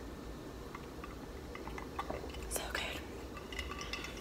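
Quiet mouth sounds of sipping soda through a straw and swallowing, with scattered small clicks and a brief hiss about two and a half seconds in, over a low steady hum.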